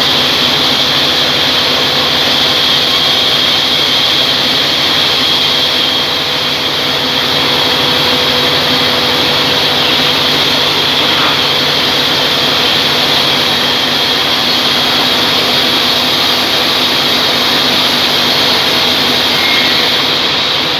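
Band sawmill running steadily: a loud, even machine drone with a constant hum and no pauses.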